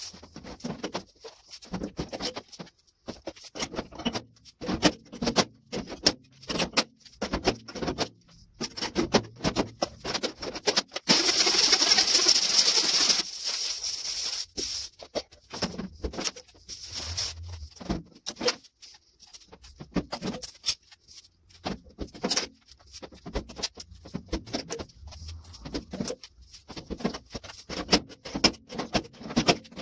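Slide hammer pulling on pins welded to the steel roof of a 1953 Chevy 3100 cab: a run of sharp, irregular metal knocks as the roof dents are pulled out. A loud hiss lasts about two seconds roughly a third of the way in.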